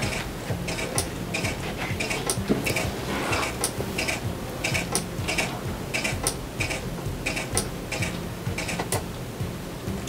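Automatic blood pressure cuff on a SureSigns VS3 patient monitor deflating in steps during the measurement: a run of short, sharp mechanical clicks, about two a second, as the release valve lets air out of the cuff.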